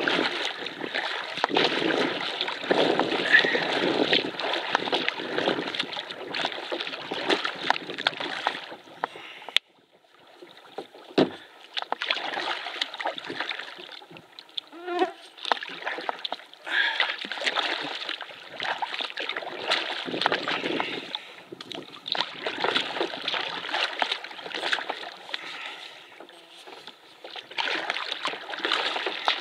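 Paddle strokes in lake water from a small paddled boat: repeated splashing and dripping. The sound drops away sharply about ten seconds in, then builds back up.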